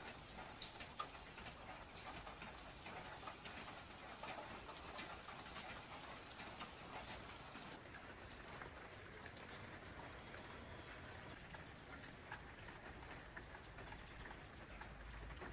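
Faint rain falling steadily, with many scattered drops ticking on surfaces.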